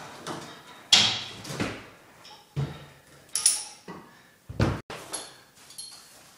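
Metal clanks and knocks from a universal weight machine, its weight stack plates and cable frame, worked from a rowing slide: several sharp irregular knocks, the loudest about a second in.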